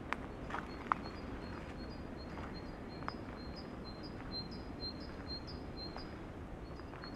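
Steady wind rushing through the forest canopy, with a small bird repeating a fast run of short, high notes, and a few crunching footsteps on the dry leaves of the path in the first seconds.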